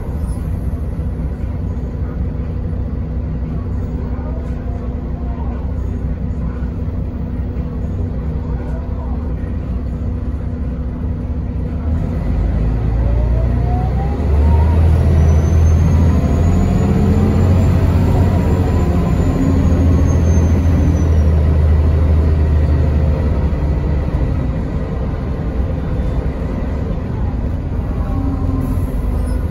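Mercedes-Benz O405NH city bus heard from inside the cabin, its engine running steadily at first. About twelve seconds in, the bus pulls away: the engine gets louder with a rising whine as it speeds up, then settles back to a steady run near the end.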